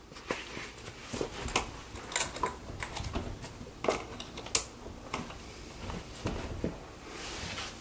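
Irregular small clicks and rustles from hat clips and cap fabric being handled, as caps are unclipped and clipped back onto the clips by their bills. A soft rustle comes near the end.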